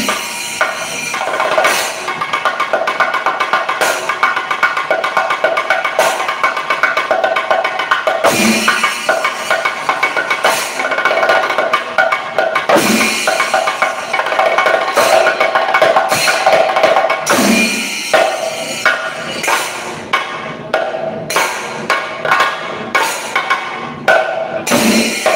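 Chenda melam: a group of Kerala chenda drums struck fast and densely with sticks, with a steady ringing tone over the strokes. Toward the end the rolling thins out into separate, evenly spaced beats.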